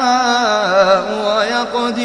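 Male Quran reciter's voice in melodic tajwid chanting, drawing out a long vowel. The pitch wavers in ornamental turns, then steps down to lower held notes near the end.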